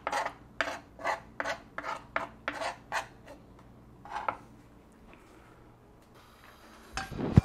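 Knife blade scraping and pressing a garlic, salt and lime-zest paste across a plastic cutting board in short strokes, about three a second, stopping after about four seconds. A loud knock near the end.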